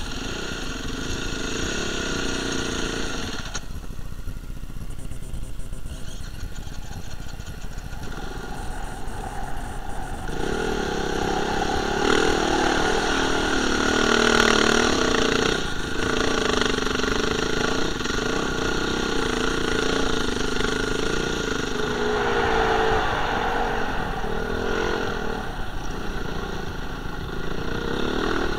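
Dirt bike engine being ridden over sandy hills, its revs rising and falling with the throttle. It is lower for several seconds near the start, then pulls hard and loud through a climb in the middle.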